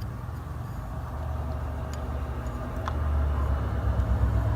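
A low, steady rumble that grows louder over the last second or two, with a couple of faint ticks.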